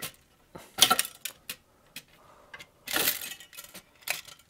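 Sharp metallic clicks and clinks of a screwdriver, screws and a circuit board knocking against a metal housing as the board is freed, with a longer rattle about three seconds in.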